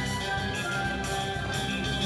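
Toirab (Comorian taarab) music playing: sustained instrument tones over steady drumming.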